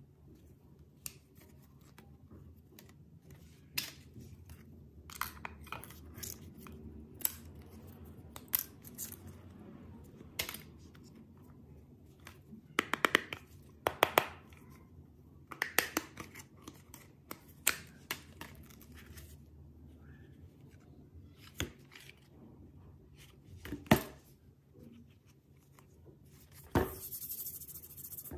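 Irregular small clicks, taps and knocks of phone housings, frames and back covers being handled and set down on a silicone work mat, busiest around the middle, with a brief scraping rub near the end.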